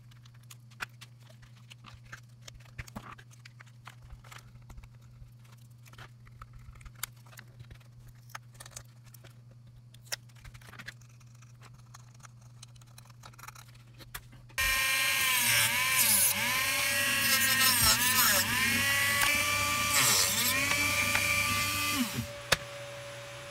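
Faint clicks and taps of small hand tools on a plastic slot-car chassis and body. About two-thirds of the way through, a Dremel rotary tool on a flex shaft with a cut-off disc starts up loud, its whine dipping in pitch again and again as it is loaded. It falls quieter near the end.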